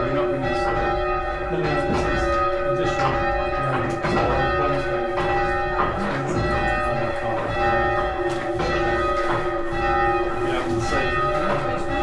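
Two church bells, bells 1 and 2 of a full-circle ring, being rung down from the upright position. They strike again and again, and each bell's tone rings on under the next strike.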